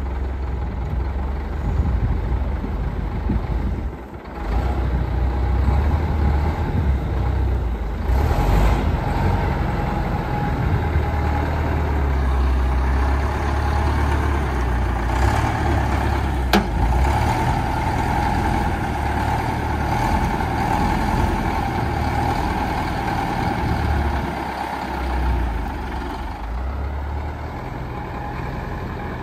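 Caterpillar 944 wheel loader's diesel engine running as the machine is operated, a steady low rumble that dips briefly about four seconds in. A single sharp knock sounds about halfway through.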